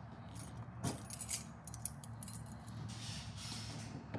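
Metal keys clinking and jangling as they are handled, with a cluster of light metallic clicks about a second in.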